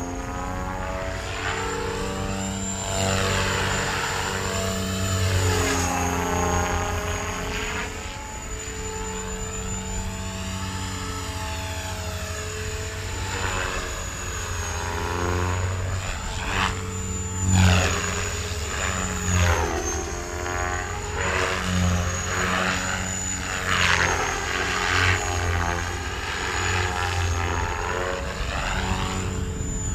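KDS Innova 550 electric RC helicopter with 520 mm main rotor blades flying 3D aerobatics: the rotor blades slap the air over a steady thin high whine, the sound swelling and fading as the helicopter turns and passes, with a few louder swells midway.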